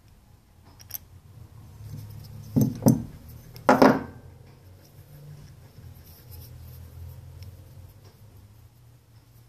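Cast-metal rear strut top mounts being handled and knocked against a workbench. A small click comes about a second in, then three sharp clunks between about two and a half and four seconds in.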